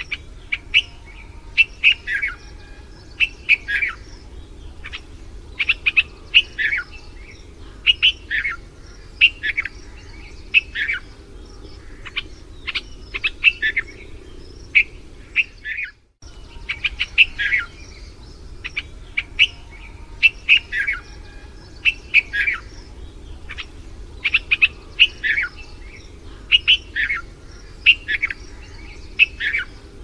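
Red-vented bulbuls calling: short, sharp chirping notes repeated in quick clusters, with a brief break about halfway through.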